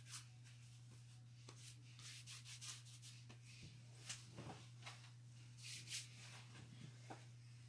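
Faint rubbing and rustling of hands rubbing together and wiping skin and clothing, to clean off smeared chalk paste, in short scattered strokes over a steady low hum.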